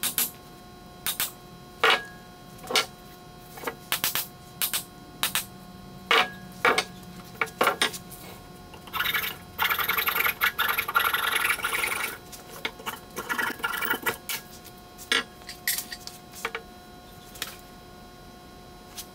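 Sharp wooden knocks at an uneven pace as a mallet drives a wooden handle and wedge into a ball peen hammer head. Near the middle comes a few seconds of hand-sawing as the protruding handle end is cut flush with the head, then some lighter rasping strokes and a few more knocks.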